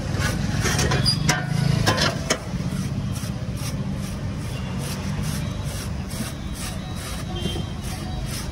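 Steady low rumble of street traffic, with a few sharp knocks and clatters in the first couple of seconds.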